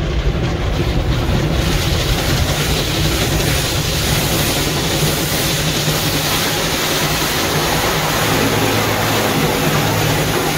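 Automatic tunnel car wash heard from inside a truck cab: water spray and spinning cloth brushes working over the windshield and body, a steady rushing noise over a low rumble. The spray grows louder about two seconds in.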